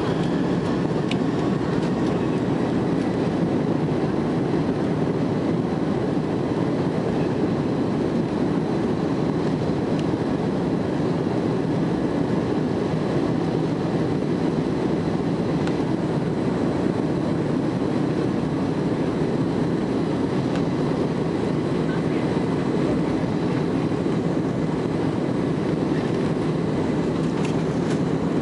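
Steady cabin noise inside an Airbus A300 rolling on the ground at low thrust: a constant low rumble from the engines and the wheels on the pavement, with a faint steady high whine, and no spool-up to takeoff power.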